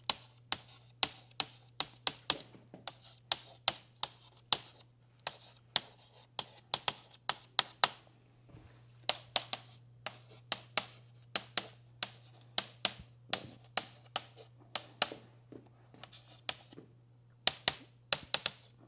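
Chalk writing on a chalkboard: a long run of sharp taps and short scratches as the letters are struck and drawn, broken by a few short pauses, with a steady low hum beneath.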